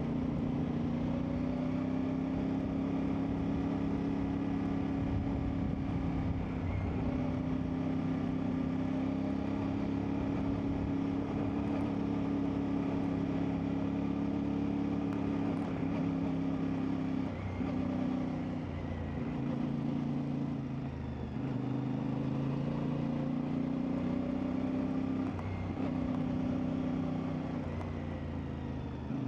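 CFMoto 450MT's parallel-twin engine running steadily under way, its note dipping and shifting in pitch briefly a few times in the second half.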